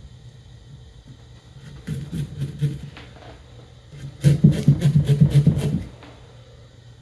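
Knife sawing through a pumpkin's rind and flesh in quick back-and-forth strokes: a short burst about two seconds in, then a longer, louder run of strokes from about four seconds to six.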